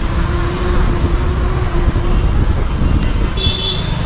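Wind rushing on the action camera's microphone, with tyre and road noise, as a fat bike is ridden fast along a wet road among traffic. A faint steady tone sounds through the first half, and a brief high squeal comes near the end.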